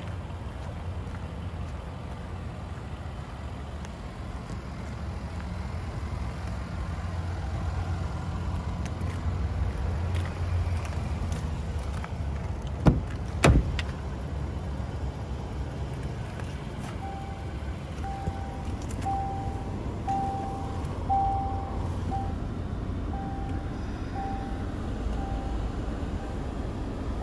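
A steady low rumble, broken by two sharp knocks about halfway through. Then a Range Rover Sport's warning chime beeps on one pitch about once a second for some ten seconds, fading toward the end.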